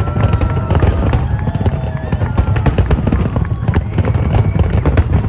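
Fireworks display going off: rapid crackling pops over a continuous low rumble of shell bursts, with a few faint whistles and voices mixed in.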